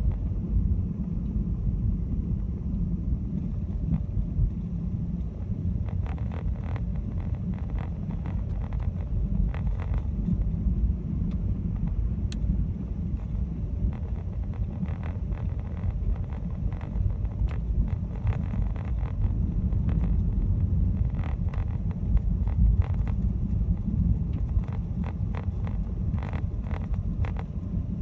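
Car driving slowly on a snow-covered road, heard from inside the cabin: a steady low rumble of the engine and tyres, with scattered crackling clicks from about six seconds in.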